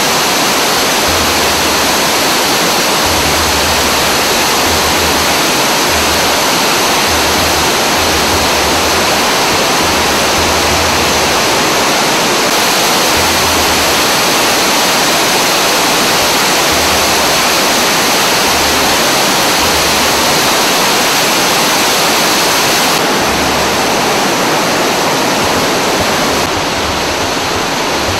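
Waterfall: water pouring down a rock face and churning over boulders, a loud, steady rushing noise.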